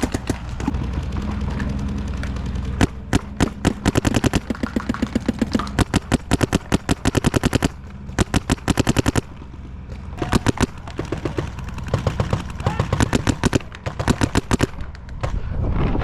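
Paintball markers firing in rapid strings of shots, with several long bursts and a few shorter ones. Wind rumbles on the microphone underneath.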